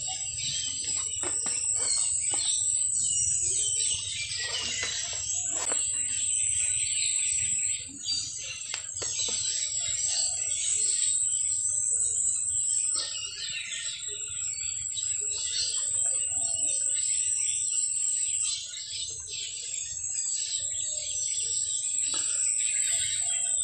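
Chorus of many forest birds chirping and trilling, with a steady high-pitched insect drone underneath.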